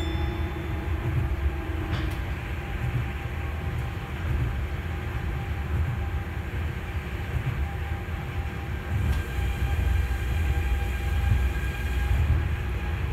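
Osaka Monorail 3000-series car running along its track, heard from inside the front of the car: a steady low rumble with faint constant whine tones from the drive.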